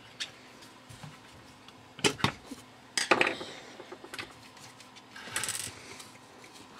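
Handling noise as a Teflon end cap is pried and worked off an ozone-generator tube: a screwdriver clicking and knocking against the parts, the loudest knock about three seconds in, then a short scraping rattle about five seconds in.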